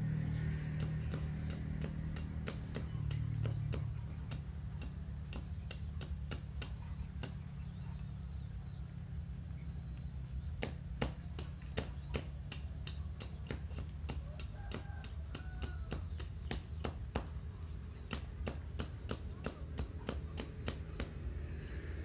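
A large blade cutting and trimming thin bamboo pieces: irregular sharp taps and clicks that come thicker in the second half, over a steady low hum.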